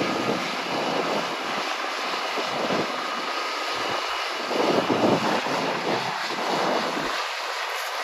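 John Deere combine harvester running while harvesting: a steady machine rush of engine and threshing, with an uneven low rumble that swells and fades, loudest about five seconds in.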